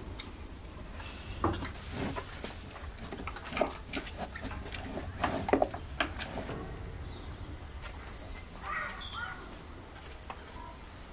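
Small birds chirping now and then over scattered short crunches and knocks, the sound of an animal munching halved fruit from a plastic bucket.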